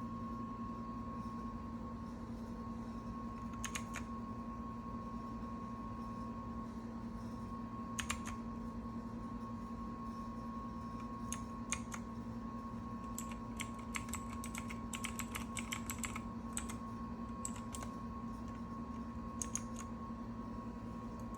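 Keys of a Redragon Fizz mechanical keyboard being pressed now and then, sharp clicks one at a time with a quick run of presses in the middle. A steady low hum and a faint high whine sit under the clicks.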